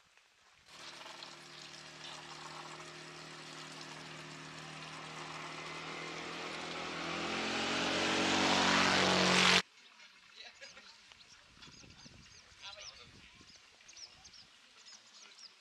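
A motor engine's steady drone with road-like noise, growing louder for about nine seconds and dipping slightly in pitch near its loudest, then cutting off abruptly. Faint short high chirps follow.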